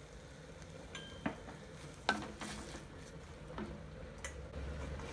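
Chopped spinach sizzling faintly as it sautés in a clay pot on the stove, with a few light clicks and knocks.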